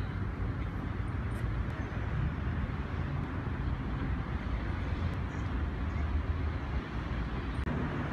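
City street noise: a steady low rumble of road traffic.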